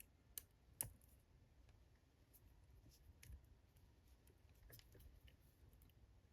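Faint, sharp metallic clicks of a lever-lock pick wire being worked into an old ERA 4-lever padlock's keyway, with two clearer clicks within the first second and scattered fainter ticks after. The wire is not going in easily.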